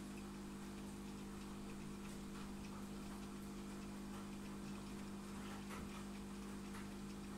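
Faint steady hum from aquarium equipment, such as an air or filter pump, with a few faint, irregular ticks over it.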